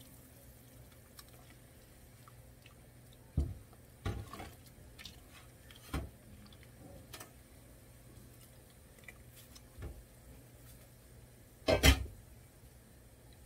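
Kimchi tipped from a bowl into a pot of hot broth and stirred with a spatula: scattered soft knocks and splashes of utensil against pot and liquid, with a louder double knock near the end.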